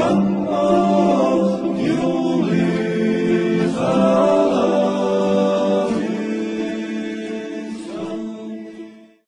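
Unaccompanied choir singing in several parts over a held low drone note, fading out over the last few seconds.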